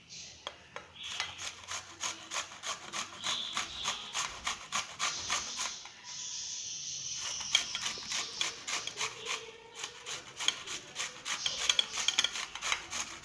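A peeled turnip being grated on a hand-held vegetable grater: a long run of quick rasping strokes, with a short break about six seconds in.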